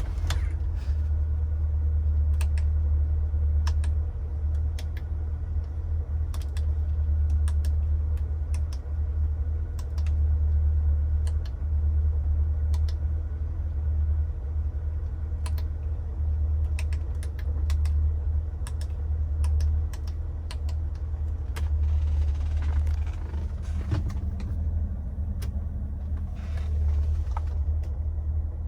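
A 1989 BMW 325is's straight-six engine idling as a steady low rumble, with many short sharp clicks scattered over it.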